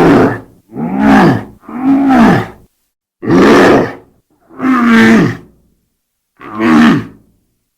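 Werewolf roar sound effect: a series of loud roars, each about a second long, with short silences between them. There are about six in all, and the pitch of each rises and then falls.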